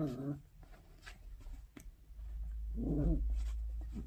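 Mini Goldendoodle puppy giving short play growls over a plush toy, one right at the start and another about three seconds in.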